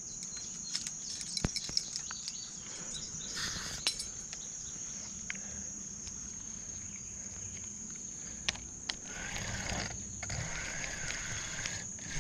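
Spinning reel being cranked as line is reeled in on a rod that has a fish on, with scattered clicks and rustles of handling and a wavering whirr about nine seconds in, over a steady high insect drone.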